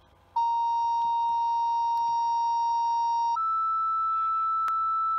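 Two-tone sequential fire pager alert over a dispatch radio channel: a steady lower tone for about three seconds, then a steady higher tone, the signal that sets off the fire company's pagers before the dispatch. A brief click sounds during the second tone.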